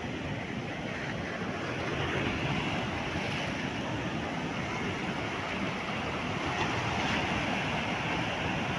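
Steady rushing wind noise with no distinct events, swelling slightly about two seconds in.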